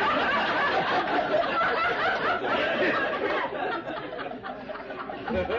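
Audience laughing, many voices at once, dying down near the end.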